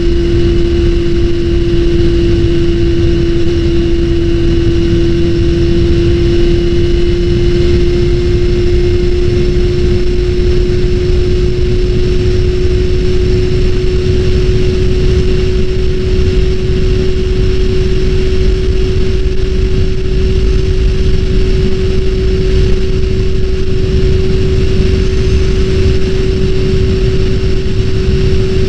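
Honda CBR400RR (NC29) inline-four engine running at idle, with a loud steady whine that creeps slightly higher in pitch. The whine fits the abnormal noise that the owner ties to a Chinese-made replacement fuel pump.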